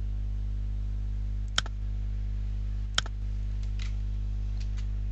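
Two sharp computer mouse clicks about a second and a half apart, then a few fainter clicks, over a steady low electrical hum.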